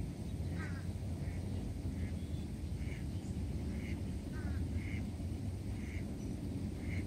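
A duck calling in a steady series of short calls, about one a second, over a steady low rumble.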